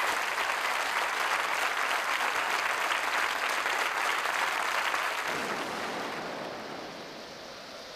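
Studio audience applauding, the clapping dying away over the last few seconds.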